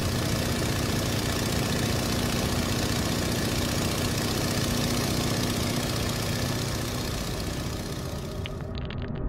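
Steady airplane engine drone with a rushing hiss and a low hum. The hiss drops away near the end, and a few sharp clicks follow.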